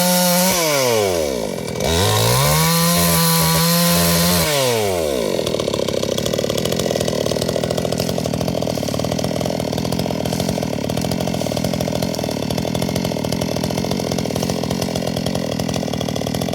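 Chainsaw cutting firewood at full throttle, easing off shortly after the start, revving back up and holding high for a couple of seconds, then dropping to a steady idle from about five seconds on.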